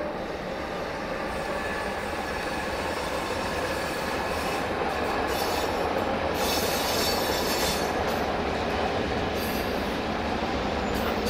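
Freight train of loaded double-deck car-carrier wagons rolling past, wheels rumbling on the track, growing slightly louder. Bursts of high-pitched wheel squeal come from about four to eight seconds in and again twice near the end.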